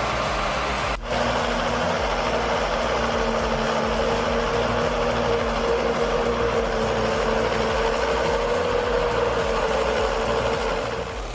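Heavy machine's engine running steadily under load, with a steady droning whine; the sound changes abruptly at a cut about a second in.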